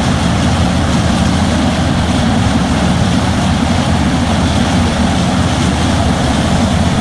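Heavy diesel engine, like an excavator's, running steadily at a constant deep rumble. It starts and stops abruptly, as an added sound effect would.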